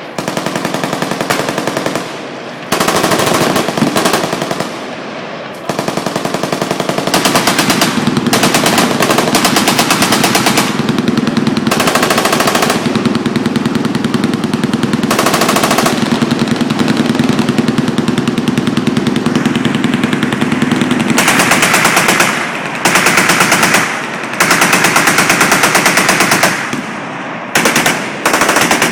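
Several machine guns firing long, overlapping bursts of automatic fire, almost without pause for much of the time. Near the end the fire breaks into separate bursts with short gaps between them.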